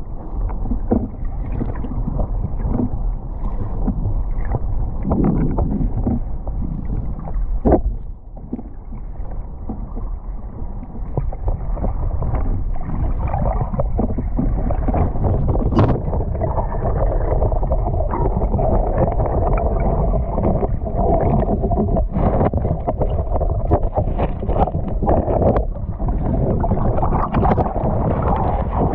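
Muffled underwater rumble and wash of shallow sea surf moving over a pebble bottom, heard through an action camera's waterproof housing, with a few sharp clicks and knocks. Near the end the camera breaks the surface and the sound turns to brighter splashing.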